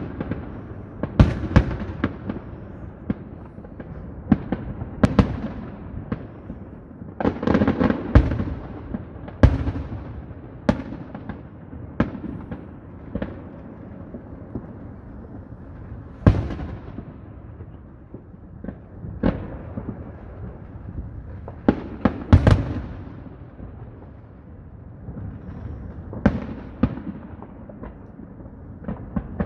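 Fireworks display going off: irregular sharp bangs a second or a few seconds apart, some in quick clusters, each trailing into a low rumble that fills the gaps.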